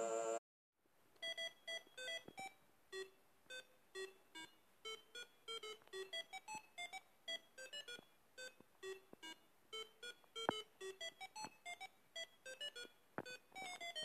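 Small loudspeaker driven by an Arduino playing a stream of short electronic beeps that jump between pitches, about four a second, with a few clicks among them. Just at the start a Stylophone note cuts off.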